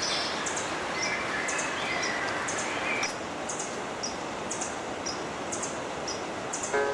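Steady rush of river water with wild birds chirping: repeated short, high chirps and a few brief whistled notes in the first three seconds.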